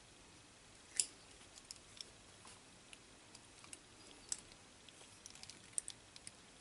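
Scattered faint clicks and ticks of test leads and a component being handled while an LED is hooked up to the tester, the sharpest about a second in and a small cluster near the end.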